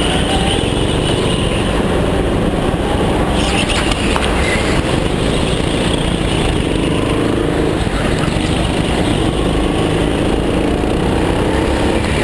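Go-kart engine running hard, heard from on the kart, its pitch rising and falling as the kart slows and accelerates through the corners, over a heavy steady low rumble.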